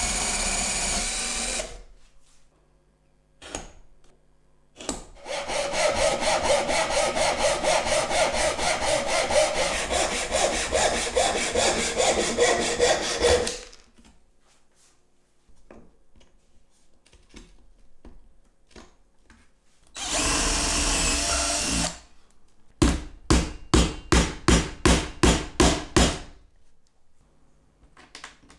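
Power drill boring through plywood for a couple of seconds at the start. About five seconds in, a saw cuts through wood with a rhythmic rasping for about eight seconds. Near twenty seconds another short drill run follows, then a quick string of about nine short, sharp strokes.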